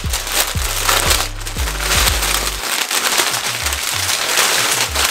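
Packaging bag crinkling and rustling as a jersey is unwrapped, over background music with a steady bass beat.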